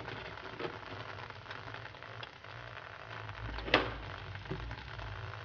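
Thick creamy chicken sauce simmering gently on low heat in a stainless steel pan, with faint crackling and small ticks. A single sharp click comes nearly four seconds in.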